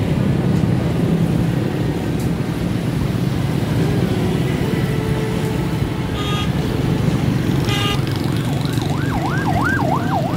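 Steady engine and road noise of a moving vehicle in city traffic, with two short horn honks and, near the end, a siren wavering quickly up and down.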